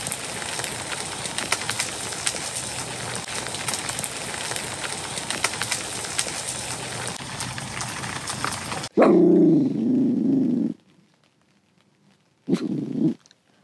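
Rain pattering steadily on the tent for about nine seconds, then cutting off. A dog barks, one long loud burst about nine seconds in and a short one near the end.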